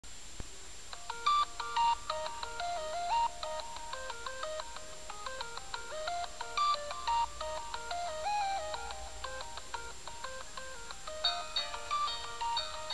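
Electronic chiptune-style melody of quick, stepped beeping notes played back from a handheld device's small speaker, with a steady high whine underneath.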